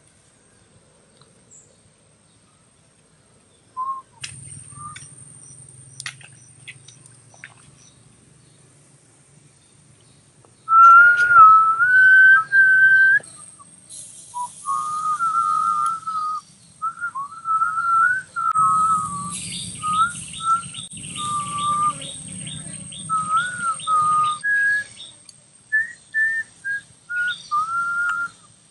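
A man whistling a wavering tune in short phrases, starting about a third of the way in after a quiet stretch with a few light clicks.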